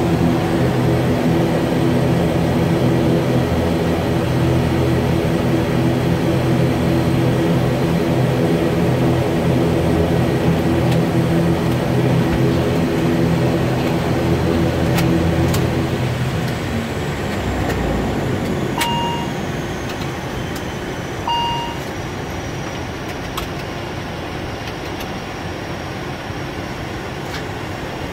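ATR 72-600 turboprop engines and propellers heard from the cockpit, a steady droning that drops away about two-thirds through, leaving a quieter hum with a slowly falling high whine. Two short electronic beeps sound a few seconds after the drone stops.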